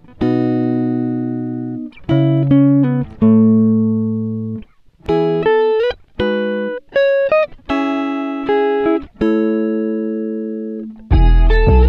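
Music: plucked guitar notes and chords, each ringing out and fading before the next. A fuller passage with deep bass comes in near the end.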